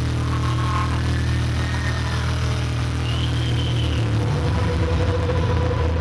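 Electronic show soundtrack: a deep, sustained bass drone with a few faint, arching higher tones drifting over it.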